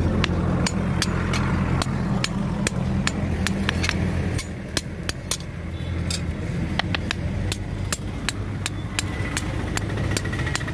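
Hand hammer striking a steel knife blade on a steel block anvil, with sharp metallic blows about two or three a second, irregularly spaced, while a chicken-cutting knife is hammered into shape. Beneath the blows runs a steady low hum, louder for the first four seconds.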